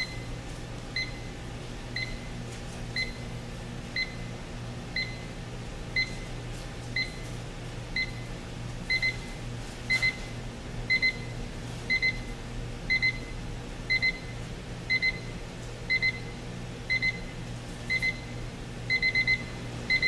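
Timelink 82032 digital alarm clock's alarm going off: a short high beep once a second, changing to double beeps about halfway through and to quick runs of four beeps near the end. A steady low hum lies underneath.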